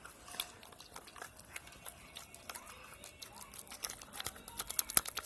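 Hands kneading and squishing a sticky homemade shampoo slime mixture: a run of wet, sticky crackling clicks that grows busier and louder toward the end, with one sharp loud click near the end.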